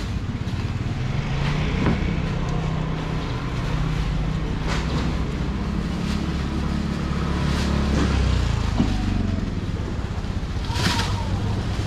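A motor vehicle engine running close by, a steady low hum that swells for a few seconds in the middle, with a few knocks from styrofoam boxes and plastic baskets being handled.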